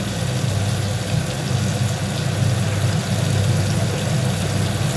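Spice masala sizzling in oil in a kadai on a gas stove, an even hiss over a steady low hum.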